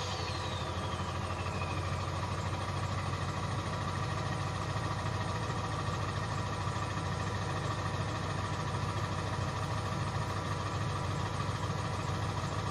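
Ford 7.3 Power Stroke V8 turbo-diesel idling after a rev, its turbo whistle falling in pitch and fading over the first two seconds as it spins down. The engine then idles steadily.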